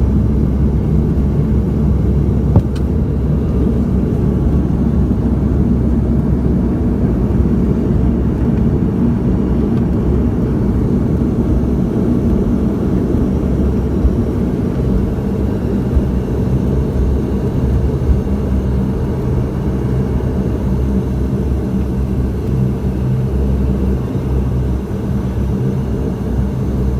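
Cabin noise of a Bombardier Dash 8 turboprop: a steady low drone from its engines and propellers, easing slightly toward the end. There is a brief click a few seconds in.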